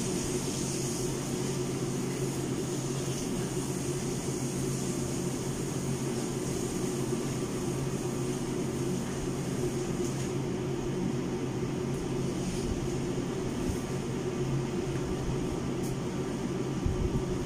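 Steady hum of a room air conditioner running: a low drone with a faint high hiss, unchanging throughout.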